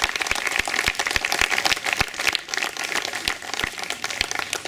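Crowd applauding, many hands clapping; the clapping thins out near the end.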